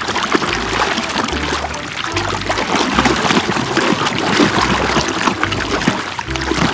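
Muddy water sloshing and splattering, with many small wet clicks, as a plastic toy gun is swished and scrubbed by hand through a shallow pool of mud.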